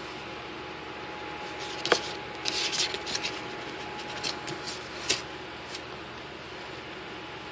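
Scattered scratches, rubs and clicks from a baby opossum being handled on a towel in a plastic tub: a sharp click about two seconds in, a cluster of scratchy rustles just after, and another click about five seconds in. Under it is a steady background hum with a faint tone.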